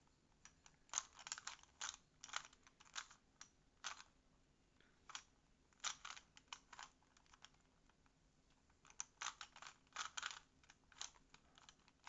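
A plastic 3x3 Rubik's cube being turned by hand: faint runs of quick clicks and clacks as its layers rotate, coming in bursts with short pauses between them.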